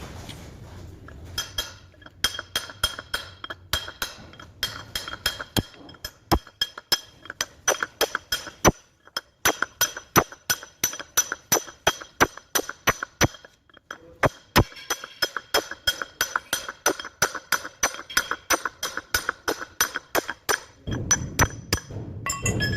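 Steel being struck over and over with a hammer, about three ringing metallic blows a second, with a few brief pauses. A low rumble comes in near the end.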